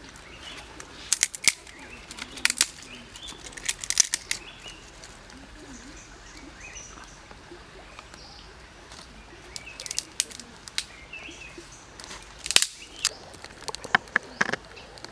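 Dry sticks snapping and crackling in short clusters of sharp cracks, several times, with faint bird chirps behind.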